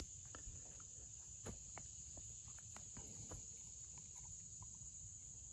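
Faint, steady high-pitched insect chirring, with scattered light ticks and scuffs of footsteps on the dirt bank.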